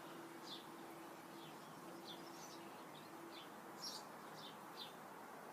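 Birds singing faintly after rain: short, high, falling chirps every half second or so, the loudest about four seconds in, over a faint steady outdoor hiss. A faint low hum stops about three and a half seconds in.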